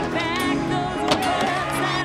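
Background pop music with a sung melody over steady backing. A skateboard's knock is heard about a second in.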